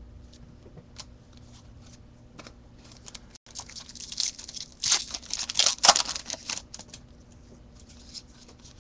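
A baseball trading-card pack's foil wrapper being torn open with crinkling for a few seconds, starting about three and a half seconds in, with light handling clicks before and after.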